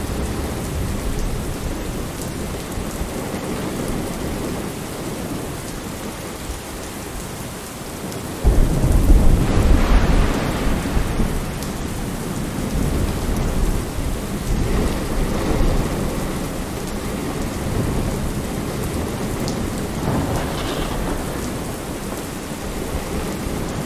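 Steady rain falling on window glass. About a third of the way in, a loud low rumble starts suddenly and lasts a few seconds, and lesser swells follow later.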